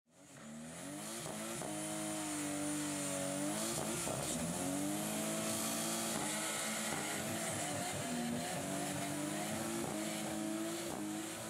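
A drift car's engine held at high revs, its pitch wavering up and down, with the rear tyres squealing as they spin and slide. The sound fades in over the first second.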